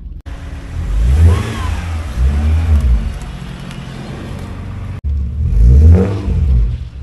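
Mazda Eunos (MX-3) 1.8-litre V6 engine and exhaust revving up and falling back twice, running again after more than two years unstarted. The sound drops out suddenly for a moment twice.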